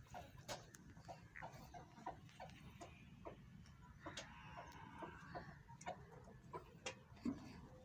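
Faint, irregular clicks and ticks, two or three a second, over a low steady hum.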